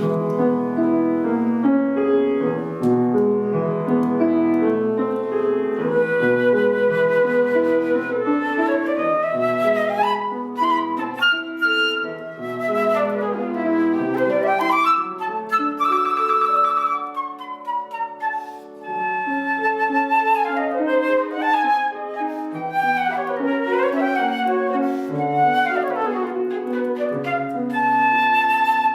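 Flute playing a melody with piano accompaniment, with several quick rising and falling runs over held chords.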